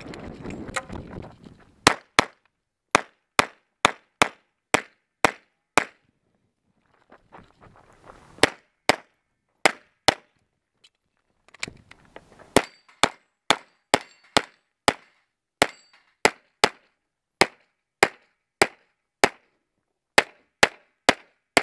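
Semi-automatic pistol fired rapidly in a USPSA stage, many sharp shots often in quick pairs, in three strings broken by two short pauses while the shooter moves between positions.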